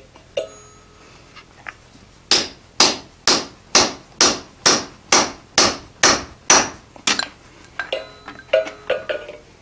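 Hand hammer striking a center punch held on a red-hot iron bar on an anvil: eleven sharp, even blows about two a second, each with a short metallic ring, marking the hole's center before hot punching. A few lighter ringing taps follow near the end.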